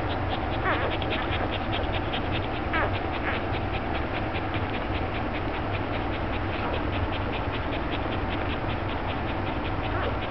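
Five-day-old puppies suckling at their mother, making a fast, even run of small wet smacking clicks, about five or six a second, with a few short squeaks in between.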